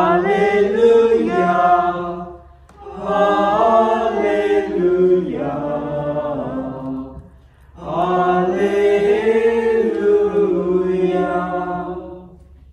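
A priest's solo unaccompanied liturgical chant: one man's voice singing long held notes in three phrases, with short breaks between them.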